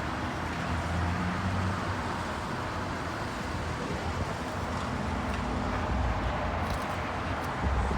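Heavy diesel asphalt-paving machinery running steadily: a low engine drone under a broad, even mechanical noise.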